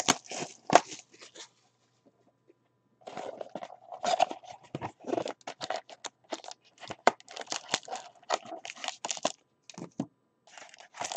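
Crackling and crinkling of plastic wrap and foil card packs, with cardboard scraping, as a sealed 2018 Panini XR trading-card box is opened and its packs lifted out. There is a short burst of crackling at the start, then a longer dense run after a brief lull.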